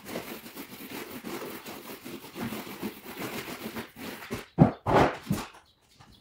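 Paint roller rolling wallpaper paste over a strip of wallpaper, a continuous rough swishing. Near the end come three short, loud, low-pitched sounds.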